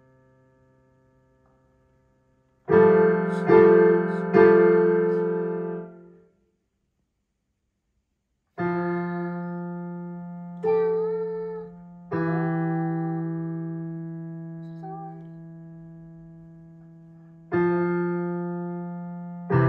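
Digital piano playing a slow, simple right-hand melody: three quick notes about three seconds in, a pause of about two seconds, then single notes struck a few seconds apart and left to ring and fade.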